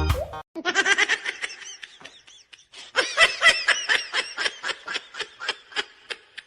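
A person laughing, first in a drawn-out giggle and then, after a brief pause about halfway through, in a long run of rapid, breathy ha-ha bursts. A short organ music sting cuts off just as it begins.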